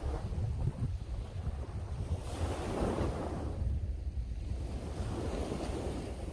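Sea waves washing in, with strong wind buffeting the microphone as a constant low rumble. One wave swells up about two seconds in and another near the end.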